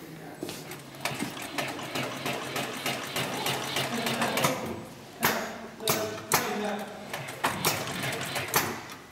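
HIGHTEX 204-370 heavy-duty two-needle sewing machine stitching leather upholstery in a fast run of stitches. After about five seconds it stops and starts, giving several separate loud clunks.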